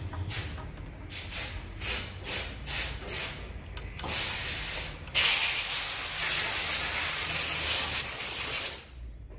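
A spray hissing at a motorcycle's front brake caliper: about seven short puffs in quick succession, then a long continuous spray that cuts off suddenly near the end.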